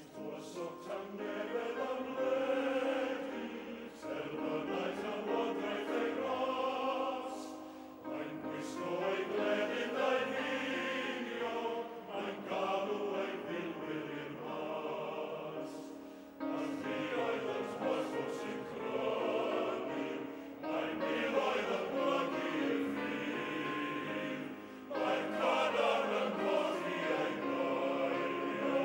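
Male voice choir singing in phrases of about four seconds, with short breaks between them.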